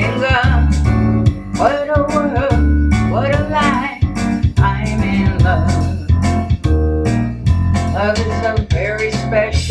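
A jazz tune played live: the deep plucked notes of an amplified washtub bass (a paracord string on a large metal tub) under electronic piano chords, with a melody line gliding above.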